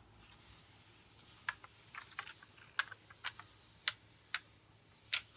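Handling sounds of a diamond painting canvas's protective sheets being pressed back into place: a string of about a dozen small, irregular clicks and taps.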